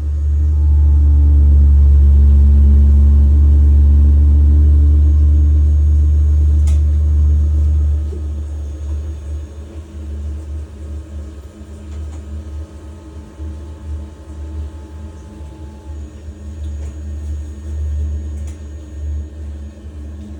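Biasi boiler making a loud low rumbling hum for about eight seconds, then dropping to a quieter, unsteady rumble, with a couple of faint clicks.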